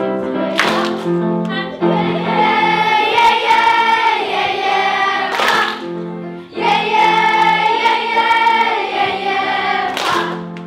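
A class of primary-school children singing a song together as a choir, with piano accompaniment.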